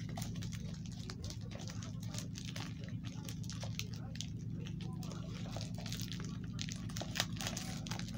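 Fingers picking and scratching at the plastic wrapping of a DVD case, a run of small irregular clicks and crinkles as the wrap resists coming open.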